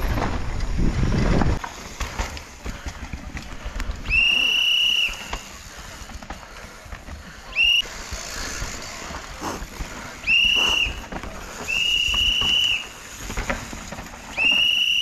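Five sharp whistle blasts at one steady high pitch, most close to a second long and one very short, spaced a few seconds apart. Low rumbling noise fills the first second and a half.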